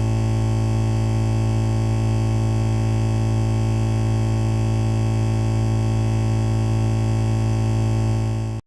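Steady electrical buzz: one low hum tone with many overtones and a faint hiss, unchanging, cutting off suddenly near the end.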